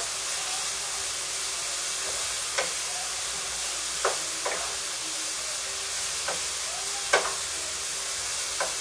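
Chicken sizzling steadily in a pan on the stove while a wooden spoon stirs it, knocking sharply against the pan a few times.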